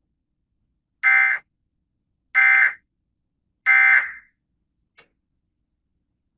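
Emergency Alert System end-of-message data tones: three short, harsh digital bursts about a second apart, signalling that the alert broadcast is over. A faint click follows near the end.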